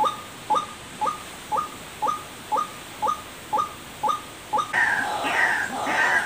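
White-breasted waterhen (ruak-ruak) calls: a short, sharp note repeated about twice a second, then from about two-thirds in a louder, busier run of overlapping calls.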